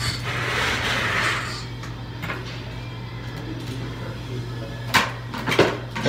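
Dental chairside sounds: a steady low hum, a hiss lasting about a second and a half at the start, then two sharp clicks about half a second apart near the end.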